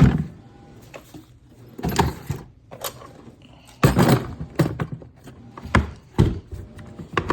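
Hard plastic Toughbuilt StackTech toolboxes being handled: a series of knocks and clunks, about half a dozen, the loudest right at the start.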